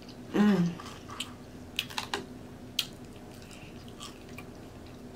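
Close-miked chewing of nacho chips and toppings: scattered sharp wet clicks and smacks of the mouth. About half a second in comes a short hummed "mm" that falls in pitch.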